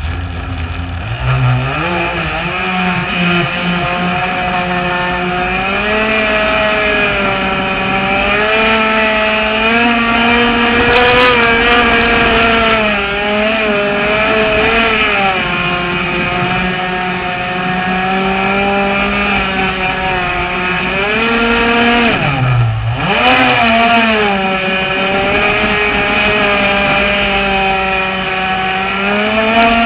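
Two-stroke engine of a Shockwave 55 RC boat heard close up from on board, climbing to speed about a second in and then running hard, its pitch wavering with the throttle. About three quarters of the way through it drops briefly to a low idle, then revs back up to full speed.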